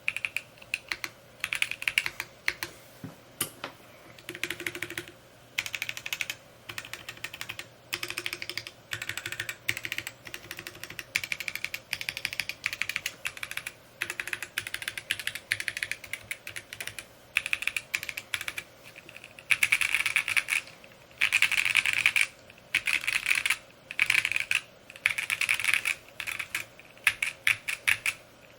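Typing on a Mode Encore 2 mechanical keyboard: quick runs of keystrokes in bursts of a second or two, separated by short pauses. The runs are louder and denser for several seconds past the middle.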